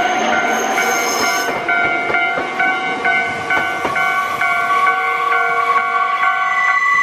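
Nankai 2300 series electric train running past and drawing away, with a bell ringing about twice a second over it until near the end.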